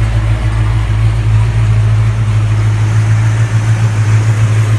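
1968 Pontiac GTO's 400 V8 idling steadily: a loud, low, even drone.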